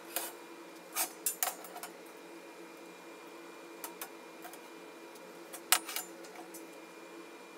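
Light metallic clinks and taps as a perforated stainless-steel shelf and its metal rods are handled: a few about one to one and a half seconds in and a couple more near six seconds, over a steady low hum.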